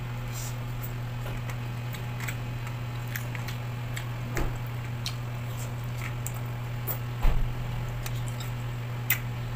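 Close-up eating sounds of spicy baby octopus chewed with the mouth and picked up by hand: scattered wet mouth clicks and squishes over a steady low hum, with a few louder knocks, the loudest about seven seconds in.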